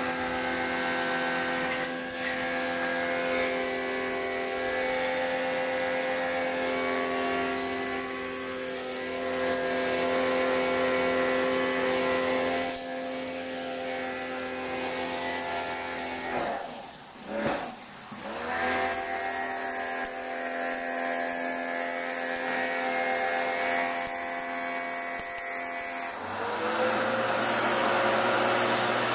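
Kinshin electric pressure washer running: a steady motor-pump whine with the hiss of the water jet. About two-thirds through, the motor winds down and starts up again, and near the end its tone shifts lower.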